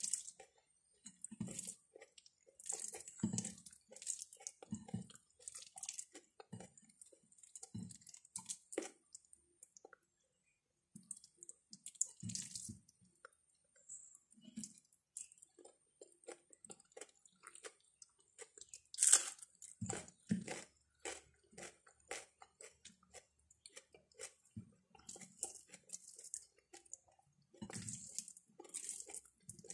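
Someone eating rice and curry with their fingers: fingers mixing the rice on the plate, and chewing, heard as irregular short clicks and mouth sounds. There is one sharper, louder click about two-thirds of the way through.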